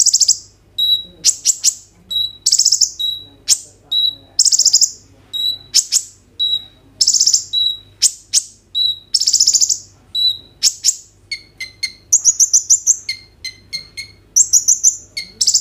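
Male kolibri ninja sunbird singing hard: a short high whistle followed by a loud buzzing trill, repeated about once a second. After about 11 s it switches to a quick run of paired chip notes, then goes back to the trills.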